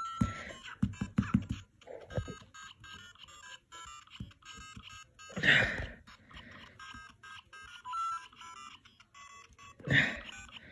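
LEGO Mario interactive figure playing tinny electronic game music and beeps from its built-in speaker as it is moved over the bricks. There is a run of knocks in the first couple of seconds, and two louder bursts come about halfway through and near the end.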